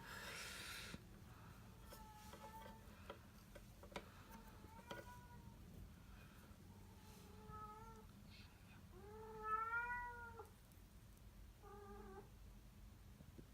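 Domestic cat meowing, five faint short meows a couple of seconds apart, each rising and falling in pitch, the longest and loudest about ten seconds in.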